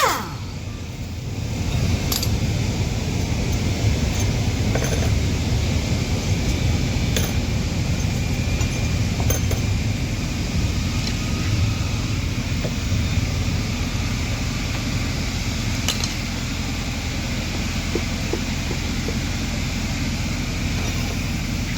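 A steady low mechanical hum with a few light metallic clinks scattered through it, as hand tools work on an engine during teardown.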